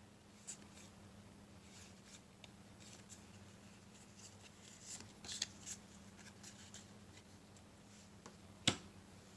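Trading cards being handled: faint scattered rustles and slides of card stock, with a sharp click near the end, over a low steady hum.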